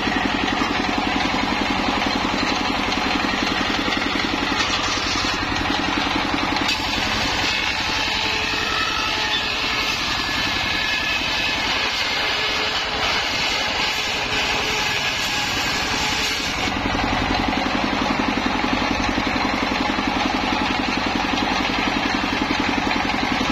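A homemade circular saw bench, its blade belt-driven by a stationary single-cylinder diesel engine running steadily with an even rapid beat. The blade rips lengthwise through a thick petung bamboo culm with a rasping hiss over the engine, and the hiss cuts off suddenly about two-thirds of the way through.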